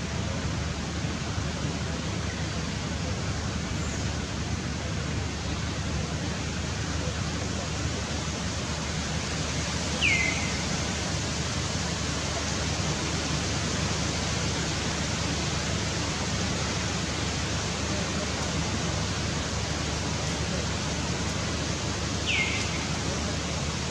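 Steady, even hiss of outdoor forest ambience, with two short high calls that fall in pitch: one about ten seconds in and one near the end.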